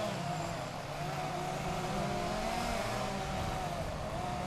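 Chainsaw engine running at speed, its pitch wavering slightly up and down as the throttle shifts. It starts and stops abruptly.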